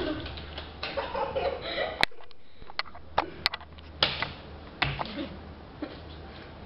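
Small white dog growling and snarling, with several sharp clicks and knocks; the loudest come about four and five seconds in.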